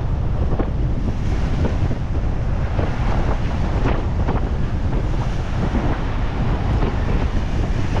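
Strong wind buffeting the microphone over the rush of waves along a sailboat's hull under sail in rough sea, steady and loud, with brief splashes now and then.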